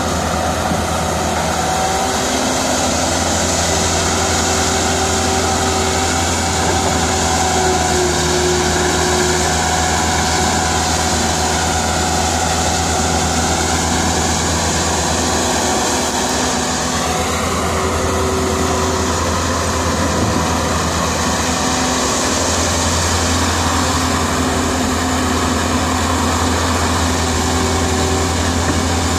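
Caterpillar E120B excavator's diesel engine running steadily while it digs and loads, with a low constant note and some higher tones that drift slowly up and down.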